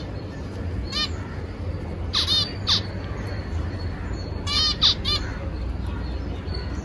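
Small cage finches calling: short, clipped chirps, a few single calls and two quick clusters of several calls about two and five seconds in, over a steady low rumble.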